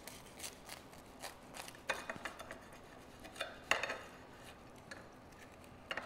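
Large kitchen knife cutting through a grilled rye-bread sandwich on a ceramic plate: faint crunching of the toasted crust, with a few louder scrapes and clicks of the blade, the loudest about two seconds and nearly four seconds in.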